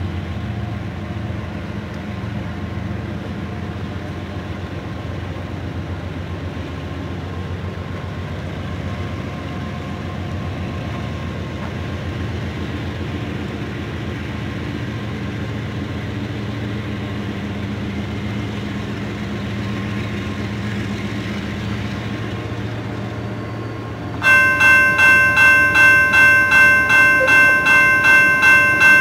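Low steady rumble of approaching GE diesel locomotives. About 24 seconds in, a railroad crossing bell starts ringing at about two strikes a second and becomes the loudest sound.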